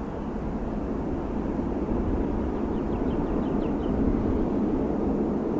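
Distant rumble of a Saab 340B twin-turboprop airliner on the runway, growing steadily louder.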